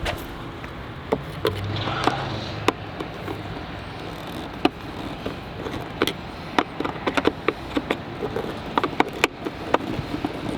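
Irregular sharp clicks and taps of a flathead screwdriver and plastic parts while hand-tightening the screws of a Ram 3500's air filter housing, coming faster in the second half, over a low background hum.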